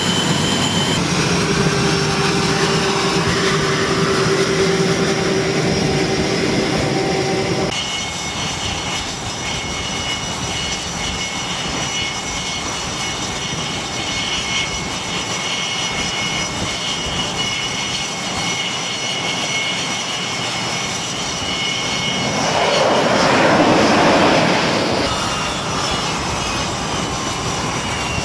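F/A-18 Super Hornet jet engines running on a carrier flight deck, a steady high whine over a rushing roar. About 23 seconds in, a louder jet rush swells and fades.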